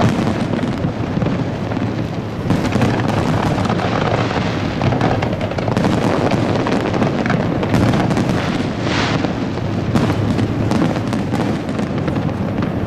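Aerial firework shells bursting in quick succession, many booms overlapping with crackle into one loud, continuous din. It dips briefly about two seconds in, then builds again.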